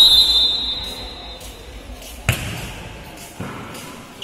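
Referee's whistle in one long, shrill blast that fades out about a second in. It is followed by the sharp slap of a volleyball being struck about two seconds in, and a second hit about a second later.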